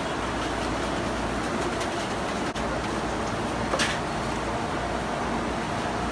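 Steady machinery hum and room noise at a fish-cutting counter, with one brief sharp noise about four seconds in.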